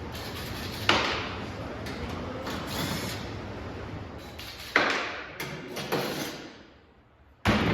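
Workshop handling noise broken by three sharp knocks, at about one second, about five seconds and a loudest one near the end after a short lull.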